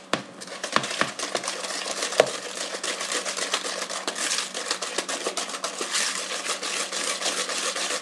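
Wire balloon whisk beating butter and sugar in a plastic mixing bowl by hand, creaming them until light: a rapid, continuous run of clicks and scrapes as the wires strike the bowl, with a sharper click about two seconds in.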